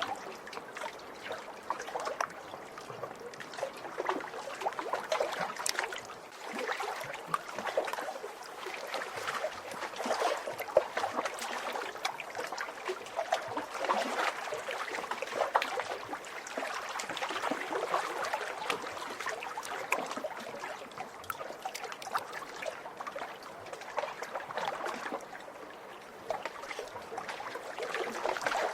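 Small waves lapping and splashing at a lake's edge, a continuous patter of little splashes that swells and eases every few seconds.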